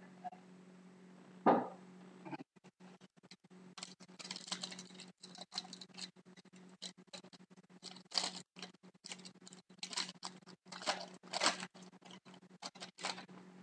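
A single thud about a second and a half in, then repeated bursts of crinkling and rustling as packs of trading cards are torn open and the cards handled.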